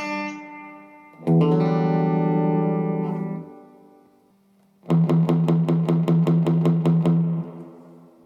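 Electric guitar played through a VOX valve combo amp with EL84 power valves. A chord is struck and left to ring out. After a short pause, one chord is strummed in a fast, steady rhythm for a couple of seconds, then allowed to fade.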